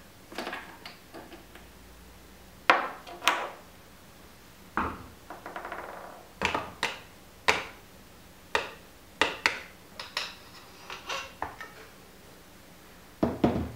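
Irregular sharp knocks and metallic clinks, about a dozen, as the parts of a RockShox Boxxer fork are handled and set down on a workbench, with a short rattling scrape near the middle.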